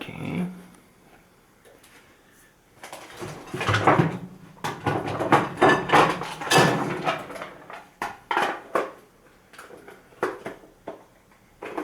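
Clicks, knocks and scraping from handling the parts of a wireless outdoor alarm siren as it is put together. A busy run of knocks and rattles comes from about three to nine seconds in, with a few single clicks near the end.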